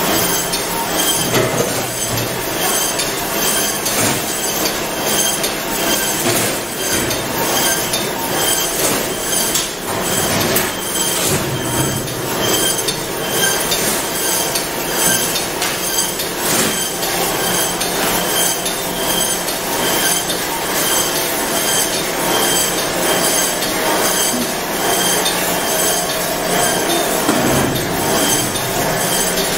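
Poultry processing line machinery running: a steady, loud mechanical din from stainless conveyors and overhead shackle lines, with constant small clicks and knocks.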